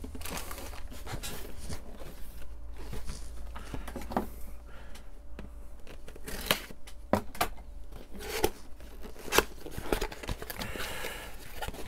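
A cardboard box being opened by hand: a tool scraping along the taped seam, then the flaps pulled apart, with scattered sharp clicks and knocks of cardboard.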